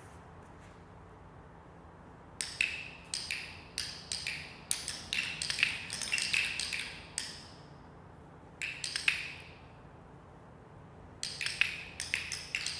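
Several handheld dog-training clickers clicking in scattered, overlapping bursts, with gaps between them. Each click marks a movement as the right behaviour, the cue that a reward is earned.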